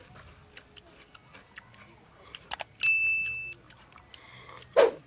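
Grilled field snails being sucked noisily out of their shells: a high, steady squeal for under a second about three seconds in, then a short loud slurp near the end, with light clicks of shells and toothpicks.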